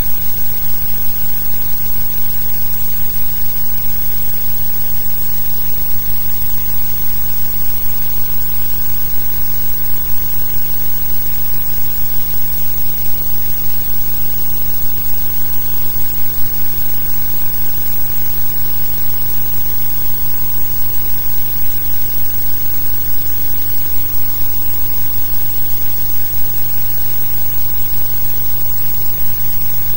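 Steady electrical hum with an even hiss and no other sound: the noise floor of an archive transfer of newsreel film that has no soundtrack.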